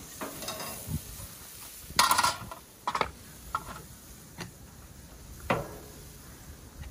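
Metal barbecue utensils clinking and knocking against a grill, a handful of separate strikes, the loudest about two seconds in.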